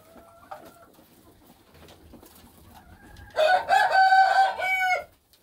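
A rooster crowing once, loudly, starting about three seconds in and lasting under two seconds, after a faint short call near the start.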